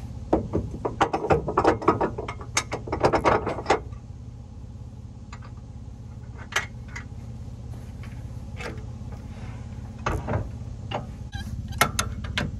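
Bursts of metallic clicking and clanking, densest in the first four seconds and then a few single clicks, over a steady low engine idle.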